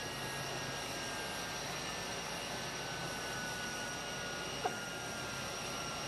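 Jet engines of Air Force One, a Boeing 747 (VC-25A), running on the ground: a steady rushing hiss with high whining tones, one of them slowly falling in pitch. A brief sharp chirp about four and a half seconds in.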